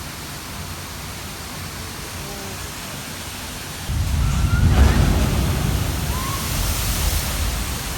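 Rushing water in a water ride's splash zone: a steady hiss, then a sudden loud surge about four seconds in, with a deep rumble and spray that slowly dies down.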